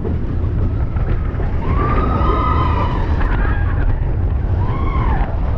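Mine-train roller coaster running along its track, with steady low rumble and wind buffeting the microphone. Two long high cries that rise and fall in pitch are heard, one about two seconds in and a shorter one near the end.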